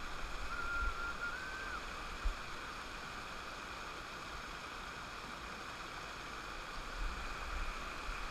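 River water rushing over a rocky riffle in a steady rush, with a short thin whistle about a second in.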